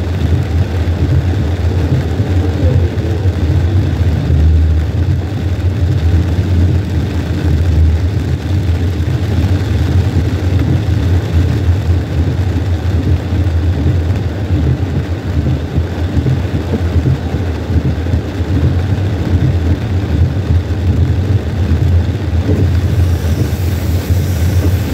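Steady low rumble of a car's engine and tyres on a wet highway, heard from inside the cabin.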